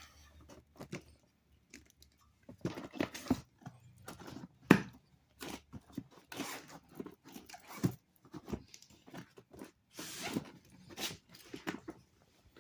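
E-bike tire being pushed onto the rim by hand, the rubber bead scraping and creaking against the rim with irregular clicks and knocks; one sharp knock about five seconds in.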